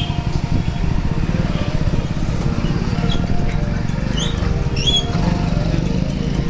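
Motorcycle and scooter engines running in street traffic, a steady low rumble, with background music playing over it.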